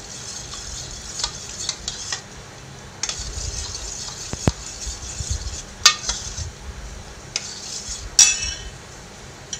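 Steel spoon stirring thick curd and cream in a stainless steel bowl, scraping along the sides with light clicks. Two sharper clinks of spoon against bowl come in the second half, the last with a brief metallic ring.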